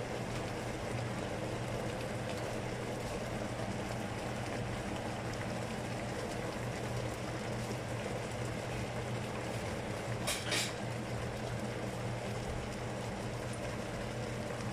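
Pots boiling on a stovetop: a steady bubbling hiss over a constant low hum, with one brief sharp sound about ten seconds in.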